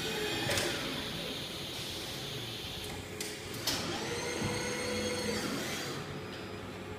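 Fuji palletizing robot and pallet conveyor running: electric drive motors whine over a steady machine hum, with a few sharp mechanical knocks. About halfway through, a high whine rises, holds for over a second and then falls away as a motor speeds up and slows down.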